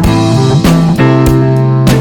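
Background music: guitar with drums, a steady beat.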